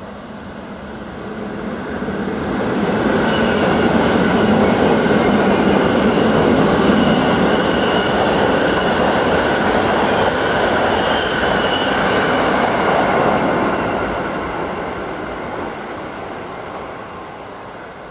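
A train passing at close range: rolling noise builds over about three seconds, stays loud for about ten seconds with a few high steady tones above the rumble, then fades away.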